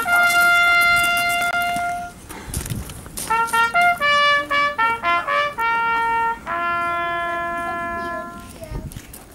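Solo trumpet playing a slow, solemn bugle-style call: a long held note, then a quick run of short notes, then two more long held notes. The last note fades away near the end.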